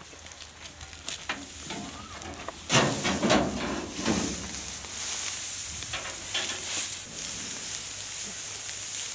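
Dry wheat sheaves rustling as bundles of harvested straw are shoved and piled by hand, loudest for about a second and a half near the middle.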